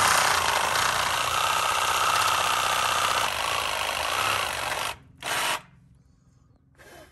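Cordless power tool cutting through a rusted, seized steel shock bolt, running steadily for about five seconds with a slight drop in pitch partway through. It stops, then gives one short burst of about half a second.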